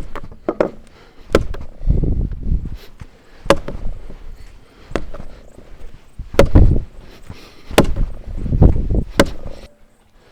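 Soft, egg-rich brioche dough being slapped down onto the work surface and folded over by hand (slap-and-fold kneading), a sharp slap and a dull thud about every one to two seconds. This is the gluten-building stage before the butter goes in, with the dough now strong and only a little sticky.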